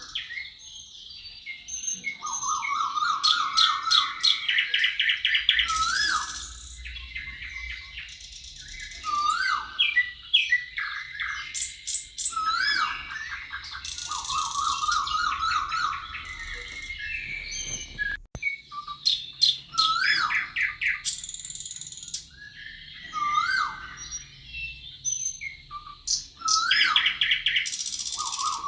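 Several songbirds singing over one another: short whistles that rise and fall, fast repeated trills and high buzzy notes, in phrases with brief pauses between them.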